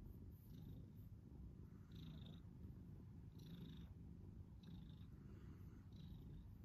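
Domestic cat purring softly, a low continuous rumble, while its head is rubbed by hand. Brief soft rustles of the fur being rubbed come about every second and a half.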